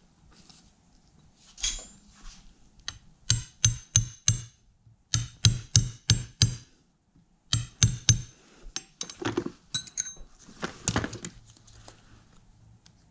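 Sharp metal-on-metal taps in quick runs of four or five, about four a second, while a clamp on a CV axle boot is worked into place. Scattered knocks and a short rattle of tools follow near the end.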